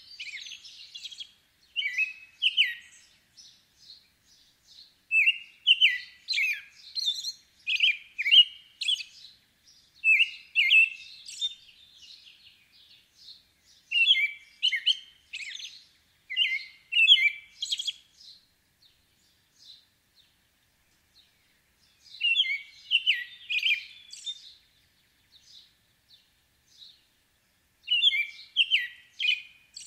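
American robin singing: short whistled phrases in bouts of a few seconds, with pauses of two to three seconds between bouts.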